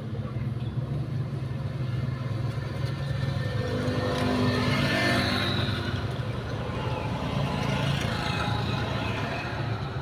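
Motor vehicle engine running with a steady low hum. It grows louder about halfway through and again a little later, as traffic passes on the road.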